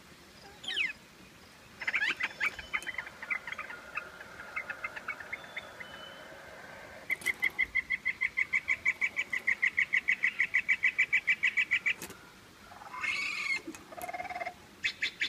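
Recorded bird songs played one after another from an interactive nature sign's speaker: a short falling whistle, a varied trilling song, then a long, fast, even trill lasting about five seconds, and harsher calls near the end.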